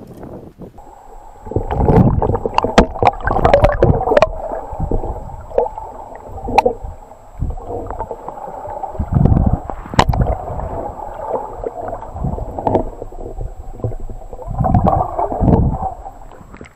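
Muffled sloshing and gurgling of lake water heard through a camera held just under the surface, swelling and fading with the waves, with frequent sharp knocks and taps against the camera.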